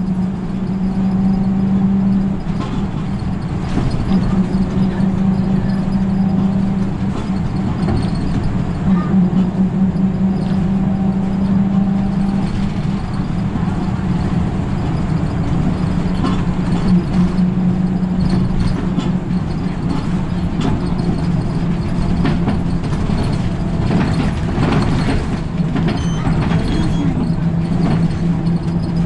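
Route bus engine heard from inside the cabin while cruising, a steady low drone over tyre and road noise, its pitch shifting slightly a few times.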